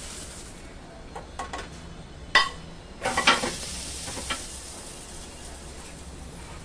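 Chicken gravy sizzling in a frying pan as sautéed capsicum and tomato are tipped in from a steel bowl and stirred with a spatula. A sharp metallic clank comes about two and a half seconds in, with a quick cluster of knocks just after.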